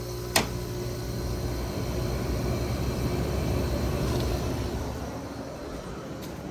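1990 GE window air conditioner, made by Panasonic, running just after being switched on: a steady low motor hum with a click about half a second in. The hum swells a little and then eases near the end. The owner has a slight feeling that its bearings are starting to go.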